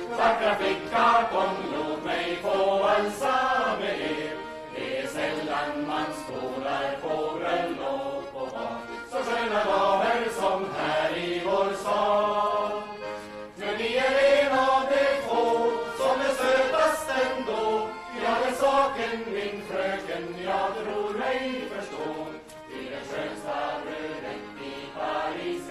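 An accordion plays a Swedish folk dance tune while a group of voices sings along.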